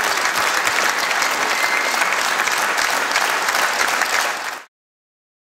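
Theatre audience applauding: dense, steady clapping that cuts off suddenly shortly before the end.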